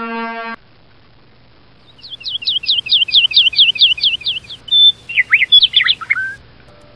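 A held horn-like note cuts off abruptly, then a bird sings a fast run of about a dozen chirps, roughly five a second, ending in a few falling whistles.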